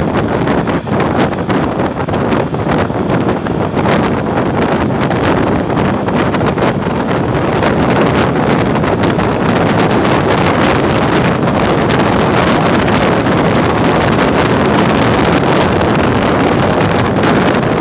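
Wind rushing and buffeting over the microphone of a moving motorcycle, mixed with its engine and road noise. Steady and loud throughout, a little more even in the second half.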